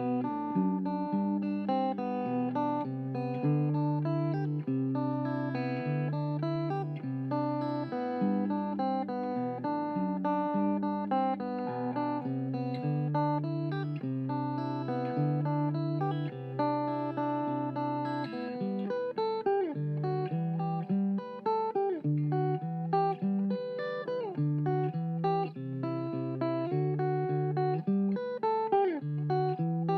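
Background music: guitar playing steady plucked and strummed chords, with sliding notes in the second half.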